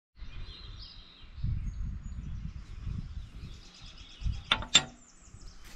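Birds chirping over a low, uneven rumble, with two sharp knocks about a third of a second apart near the end, each ringing briefly.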